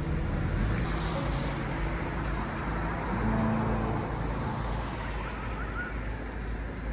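City street traffic: road noise from a car passing, swelling about three seconds in.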